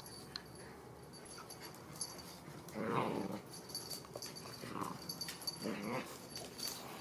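Shetland sheepdog puppy making short, rough play vocalizations while playing with a toy: three brief sounds about three, five and six seconds in, the first the loudest.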